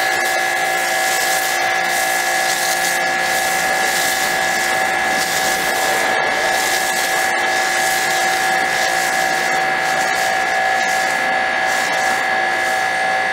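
Electric pressure washer running steadily while spraying soap foam through a foam cannon: a constant motor drone with a high whine over the hiss of the spray. The owner says the machine is kind of broken, which is why it keeps making that noise.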